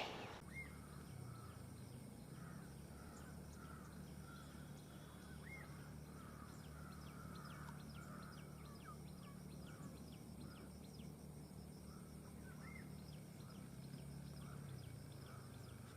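Faint birds calling and chirping here and there in a quiet rural landscape, over a low steady hum.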